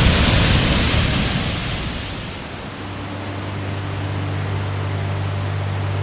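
Steady rush of a waterfall and river, a loud even noise that fades down over the first two or three seconds. About three seconds in, sustained low musical notes come in and hold steady over the remaining noise.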